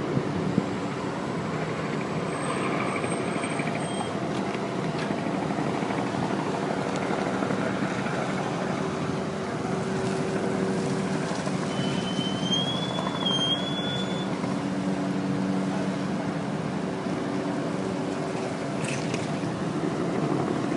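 Helicopter running steadily: a continuous low drone made of several steady tones, with a brief high whistle about twelve seconds in.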